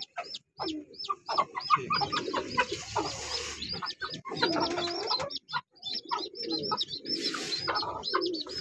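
Aseel chick peeping rapidly, about three to four high peeps a second, with a hen clucking low beside it as the chick is put in with her.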